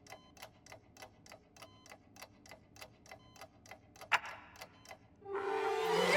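A clock ticking evenly, about four ticks a second, with one louder click about four seconds in. Near the end a drawn-out voice-like groan swells up and becomes the loudest sound.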